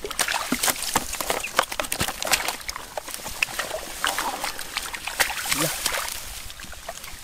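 Bare hands digging and squelching in a hole of wet mud, with irregular wet slaps and crackles throughout.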